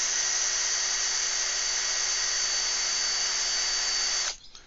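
Power drill spinning a round chainsaw file against a chainsaw chain's cutter tooth, a steady whine over a hiss as the file sharpens the tooth. It stops suddenly near the end.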